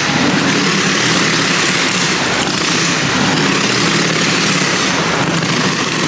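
Motorcycle engine running loudly and steadily inside a wooden Wall of Death drum.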